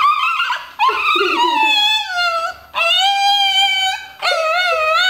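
A small dog howling in a run of drawn-out, voice-like yowls: four in quick succession, each about a second long and held at a fairly level high pitch.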